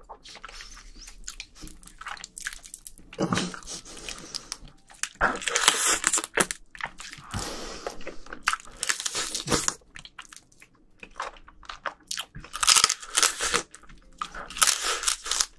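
Close-miked eating of spicy marinated raw crab (yangnyeom gejang): biting into the shell and chewing the sauced meat, with crunching in irregular bursts.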